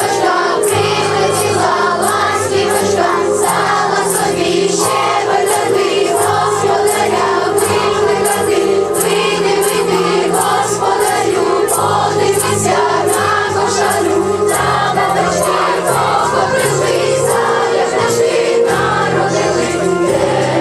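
Choir singing with instrumental accompaniment and a steady beat.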